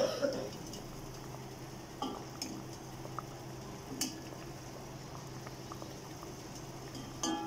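A steel ladle knocking against a steel pot a few times as it turns ras malai chhena balls over in boiling sugar syrup, with the syrup bubbling steadily underneath.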